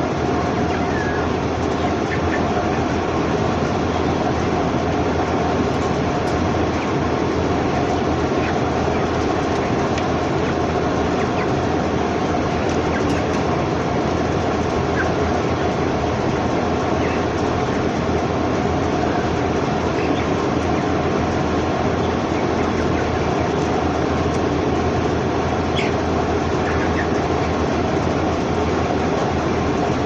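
Steady din inside a broiler house: a continuous machine-like rumble, typical of the house's ventilation fans, mixed with the massed murmur of a large flock of broiler chickens, with a few faint chirps standing out now and then.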